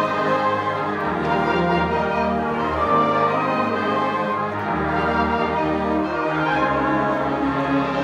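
High school concert band playing: full held chords across the band, with low notes moving underneath every second or so.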